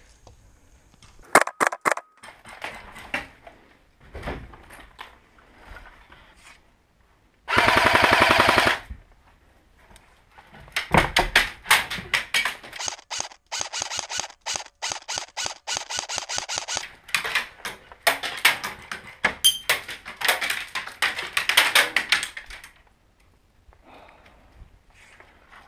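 Airsoft gunfire in rapid full-auto strings. A few sharp shots come about a second and a half in, then a dense solid burst around eight seconds in, then two long runs of rapid shots, the second ending near the end.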